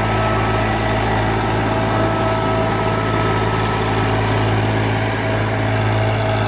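TAFE DI diesel tractor engine running steadily under load, driving a rotary tiller through wet soil: an even, unchanging engine hum.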